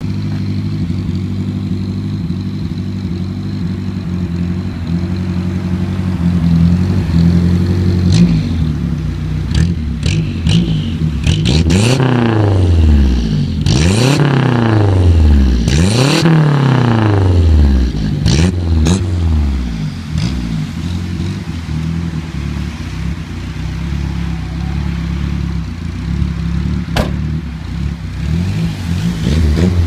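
Renault 5 GT Turbo's turbocharged four-cylinder engine idling through its exhaust, then revved four times in quick succession about a third of the way in, each rev rising and falling quickly, with sharp cracks around the revs, before it settles back to idle.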